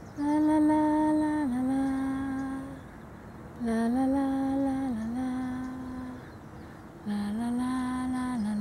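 A woman humming a slow, gentle tune without words: three long phrases, each a held note that steps down to a lower held note.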